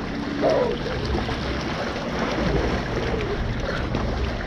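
Pool water churning and splashing as several people wade and swim around in circles to whip up a whirlpool current: a steady rushing wash with a low rumble. A short faint voice comes about half a second in.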